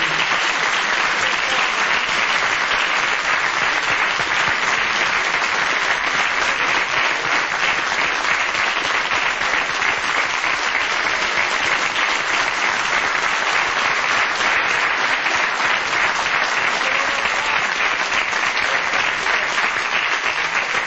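Television studio audience applauding steadily after a song.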